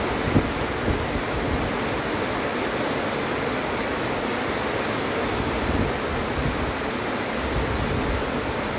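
Heavy rain falling steadily: an even, unbroken hiss. A few short low thumps stand out, twice in the first second and once about six seconds in.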